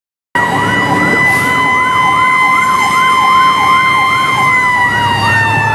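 Fire engine sirens heard from inside the cab, starting abruptly: an electronic yelp siren swooping up and down nearly three times a second over a second siren held on one steady howling tone, which begins to slide down in pitch about four and a half seconds in.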